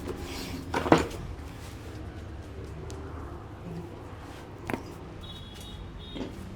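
Sharp percussive sounds of hands working during a barber's head massage: one loud smack about a second in, then two short, fainter clicks later on, over a steady low background hum.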